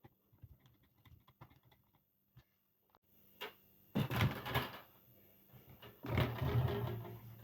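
Desk fan parts being handled and fitted during a repair, sped up: scattered small clicks, then two louder stretches of rattling and scraping about four and six seconds in.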